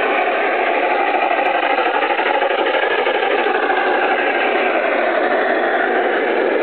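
USA Trains G-scale Union Pacific Big Boy model locomotive running along the track: a steady mechanical running noise from its electric drive motors, gearing and wheels on the rails.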